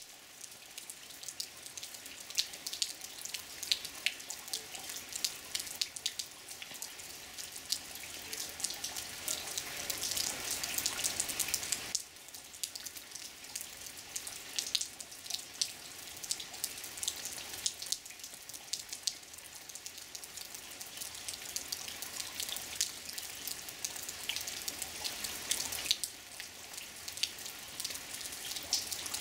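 Steady rain falling, with many separate drops pattering and dripping close by. It grows heavier toward ten seconds in and eases suddenly about twelve seconds in.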